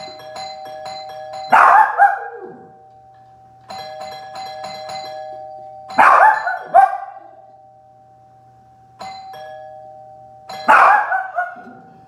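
A doorbell chime sounds over and over in two alternating tones. A dog answers it with short bursts of loud barking three times: about a second and a half in, around the middle, and near the end.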